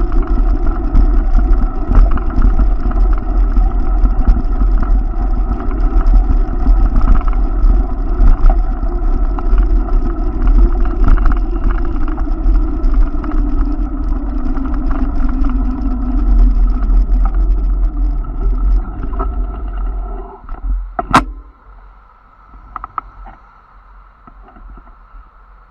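Heavy wind rumble on the microphone and rolling noise from riding along a paved bike lane. It drops away about 21 seconds in, with a sharp knock as the ride stops, leaving faint traffic at a crossing.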